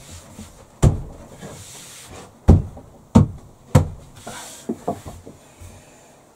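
A heavy worktop knocking and thumping against its timber bench frame as it is shifted and pressed into place: four sharp knocks in the first four seconds, then a few lighter taps, with some scraping as it slides.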